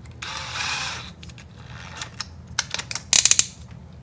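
Handling of a cordless drill with a metal eye hook set in its chuck: a short rustle, scattered light metallic clicks, and a quick run of louder clicks about three seconds in. The drill motor is not running.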